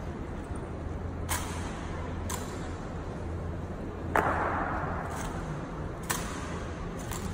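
Honour guards' rifle drill: a string of sharp clacks from M1 Garand rifles being handled and from boot heels striking the stone floor, about one a second. The loudest strike, about four seconds in, rings on in the hall. A steady low hum runs underneath.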